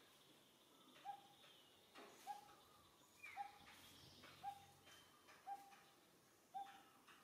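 A bird repeating a single short, clear note about once a second, faint and evenly spaced.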